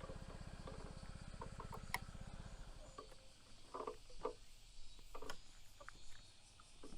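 A low, evenly pulsing engine rumble that stops about two and a half seconds in, followed by scattered light clicks and crunches.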